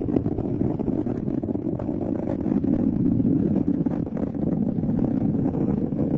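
Deep, steady, crackling rumble of a rocket explosion.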